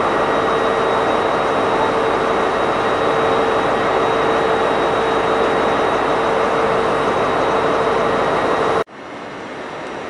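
Class 43 HST power car's diesel engine idling steadily at the platform, with a steady whine over the running. The sound cuts off abruptly near the end, and a quieter hum follows.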